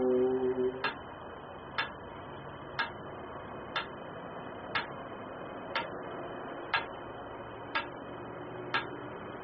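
Metronome ticking steadily about once a second, set to stand in for a heartbeat and pace slow yogic breathing. A sung mantra note ends just under a second in.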